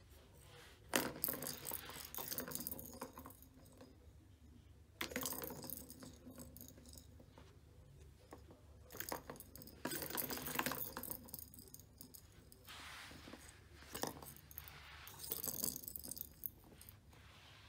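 A small plastic ball rolling and rattling around the tracks of a tiered plastic cat ball-track toy, in four runs of a few seconds each with quieter gaps between.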